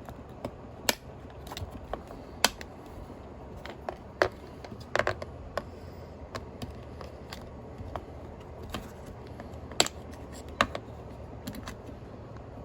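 Irregular sharp clicks and small snaps of a hand tool working the staples that hold the cover to the plastic base of a Jeep Wrangler JL center console armrest. About a dozen clicks come at uneven gaps, the loudest about a second in, about two and a half seconds in, around four to five seconds in and near ten seconds in.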